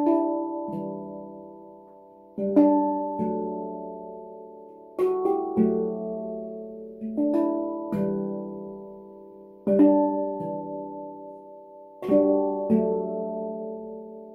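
Stainless-steel handpan by PanAlp played by hand: clusters of notes struck about every two and a half seconds, each ringing on and fading slowly, the deep central note sounding under the higher ones.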